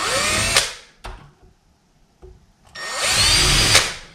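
Power drill with a small bit pre-drilling pilot holes for the deadbolt's screws in a door, in two short runs. The first run stops about half a second in. The second starts a little past the middle with a rising whine and stops shortly before the end.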